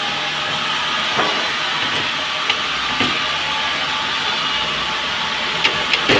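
Sawmill machinery running steadily, with a few sharp knocks about a second in, twice around the middle, and a cluster near the end.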